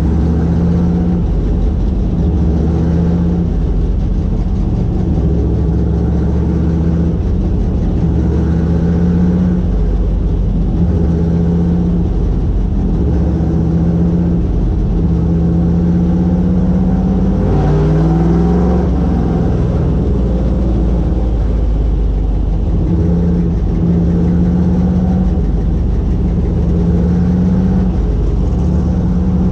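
Vintage modified race car's engine running, heard from inside the cockpit, its note stepping up and down with the throttle and rising quickly in a short rev a little past halfway.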